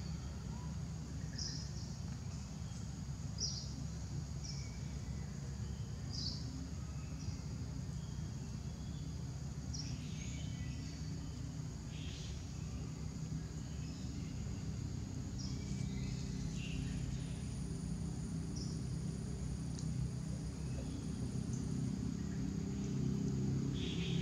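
Outdoor ambience: a steady high insect drone with brief high chirps every second or two, over a low steady rumble. A second, higher insect tone comes in about two-thirds of the way through and stops a few seconds later.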